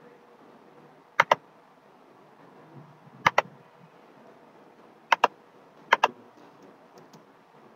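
Four double-clicks of a computer mouse, each a quick pair of sharp clicks, a second or two apart, over a faint steady hiss.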